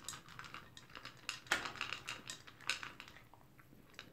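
Toy poodle eating dry kibble from a bowl: irregular crunches and clicks as it takes and chews the pieces, a few louder than the rest.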